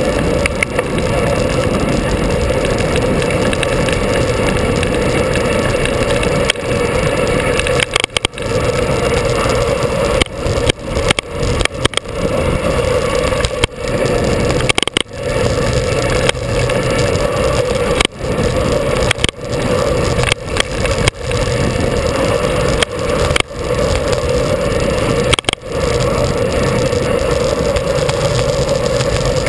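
Steady rush of wind over the microphone of a camera on a bike descending at speed, dipping briefly many times through the second half.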